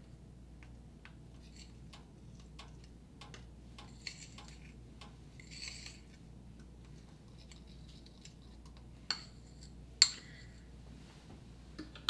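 A fork beating egg yolks in a small ceramic cup, a run of quick light clicks of the tines against the cup as the yolks are tempered with a little hot sauce. Near the end come two sharper clinks, the louder about ten seconds in.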